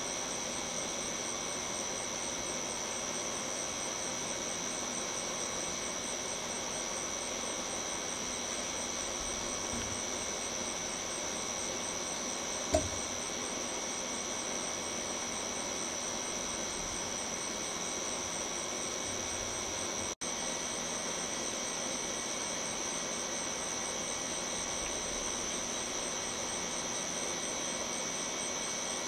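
Steady night-time outdoor background: a constant hiss with thin, high, steady tones, and no thunder from the distant lightning. A single short knock sounds about 13 seconds in, and the sound cuts out for an instant about 20 seconds in.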